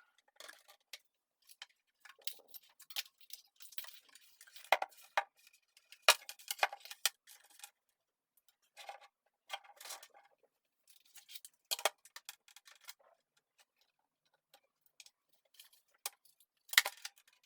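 Irregular clicks and light clatter of computer parts and cables being handled, with a sharper, louder click near the end.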